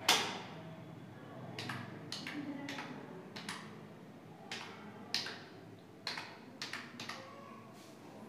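Typing on a smartphone's touchscreen keyboard: a string of short, irregular taps and clicks, one per keystroke, with a sharper, louder click right at the start.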